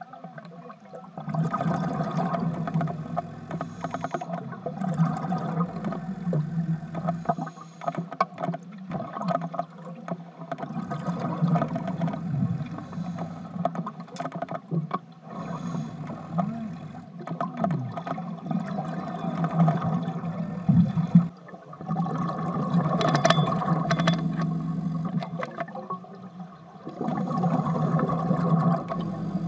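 Scuba diver breathing through a regulator, heard underwater: exhaled bubbles rumble in surges a few seconds long, with short lulls between breaths.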